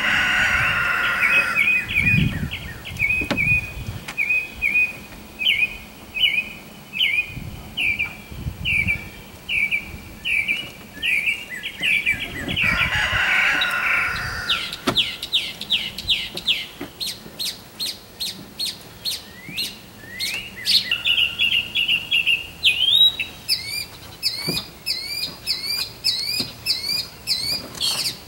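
Songbirds singing, a run of quick repeated chirps and trills one phrase after another, with a few low thuds from work on the boat mixed in.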